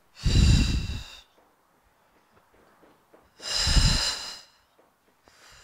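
A woman exhaling hard twice, about three seconds apart, the breath blowing on a clip-on microphone. Each is the breath out on the effort of lifting the chest in a back extension over an exercise ball.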